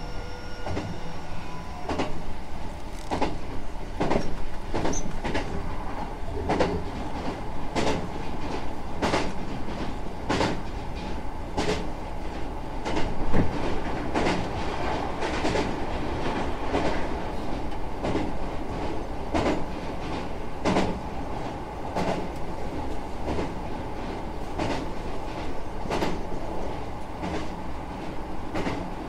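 Hankyu 9000 series electric train running at speed, heard from inside the car: a steady rumble from the running gear with the clickety-clack of the wheels crossing rail joints, a sharp click roughly every second.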